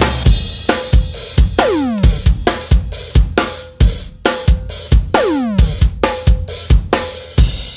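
Instrumental break of a rock song, led by a drum kit playing a steady beat of kick, snare and hi-hat. A held note sits under it, and a falling electronic swoop comes back about every three and a half seconds.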